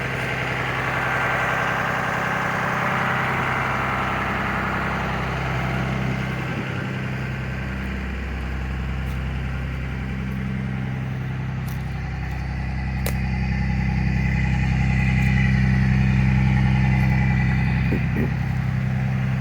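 2004 Blue Bird TC/2000 school bus engine idling steadily, freshly started after sitting about two months. It grows somewhat louder about three-quarters of the way through.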